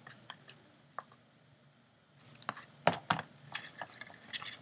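Scissors trimming the ends of a seam-binding ribbon bow and being put down on a cutting mat, among small clicks and taps of hands handling a paper box. Two sharp clicks close together about three seconds in are the loudest, followed by a run of lighter clicks.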